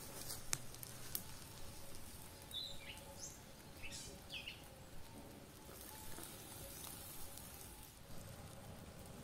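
Wood campfire crackling faintly, with a few sharp snaps in the first second or so. A bird gives several short, falling chirps about three to four seconds in.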